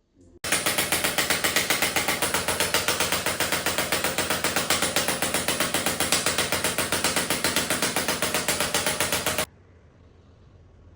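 A mechanical device rattling rapidly and evenly, several pulses a second, starting abruptly about half a second in and stopping sharply near the end.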